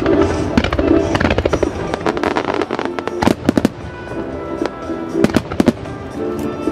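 Starmine fireworks display: a run of sharp firework reports and crackle, the bangs coming in quick clusters, over music played through loudspeakers in time with the show.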